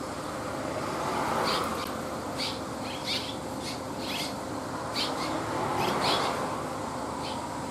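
Red-rumped swallows giving about a dozen short, high chirps at irregular intervals, over a steady background rumble.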